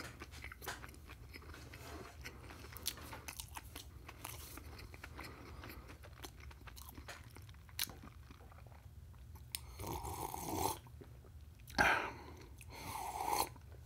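Close-miked chewing, with many small crunches and clicks. From about ten seconds in come a few louder stretches of sipping and swallowing as a drink is taken from a glass mug.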